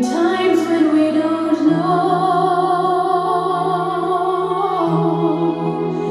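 Music playback: a singer holds a long wavering note over a steady sustained bass note.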